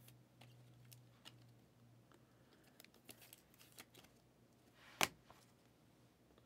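Faint rustles and small clicks of a trading card being slid into a soft plastic penny sleeve and a rigid clear top loader, with one sharper click about five seconds in.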